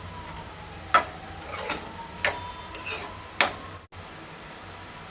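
Spoon stirring a thick coconut-masala curry in a kadai, clinking against the pan four times.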